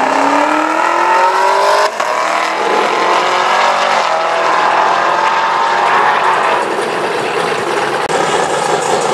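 Chevrolet Camaro engine at full throttle, launching and accelerating: the pitch climbs steadily, breaks sharply about two seconds in, then climbs again and holds high as the car runs away.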